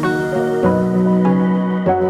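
Background music: soft keyboard melody with sustained notes.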